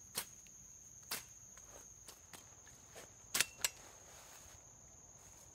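Steady high-pitched drone of insects, with a few sharp snaps and footsteps on a twig-strewn forest floor, the loudest pair about three and a half seconds in.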